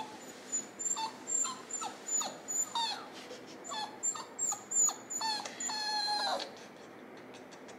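Miniature Australian Shepherd puppy whimpering: a string of short, high-pitched whines, many falling in pitch, with a longer drawn-out whine about six seconds in.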